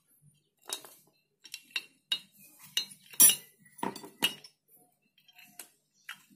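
Camshaft and metal valve-gear parts clicking and clinking against a Suzuki Hayate cylinder head as they are fitted and handled: a dozen or so light, irregular metallic clicks, the loudest a little past three seconds in.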